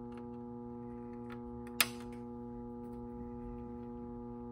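Side cutters snipping off a component leg on a circuit board: one sharp clip about two seconds in, over a steady electrical hum.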